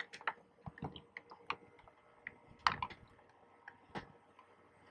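Irregular light clicks and taps of transducer cables and their connectors knocking against the boat deck as the cables are handled and untangled, with one louder knock about two and a half seconds in.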